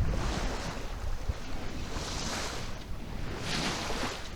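Water rushing and splashing along the hull of a Maxi 95 sailboat under sail, swelling and easing every second or two, with wind rumbling on the microphone.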